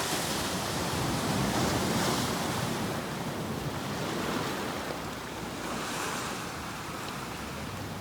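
Ocean waves breaking and washing on a shore, a steady rush of surf that swells and eases as each wave comes in.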